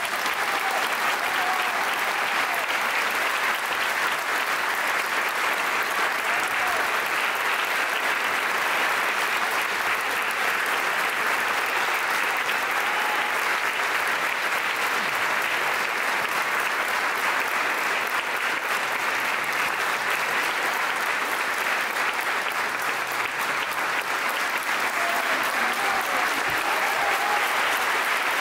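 A large audience applauding steadily, with a few faint voices in it.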